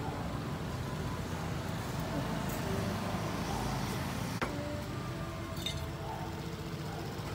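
Steady low vehicle-engine rumble of street traffic, with a single sharp clink a little after four seconds in.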